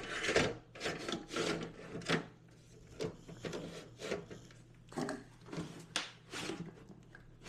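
Scraping, rubbing and light knocks of the external GPU enclosure's parts being handled and slid loosely into place, in irregular strokes.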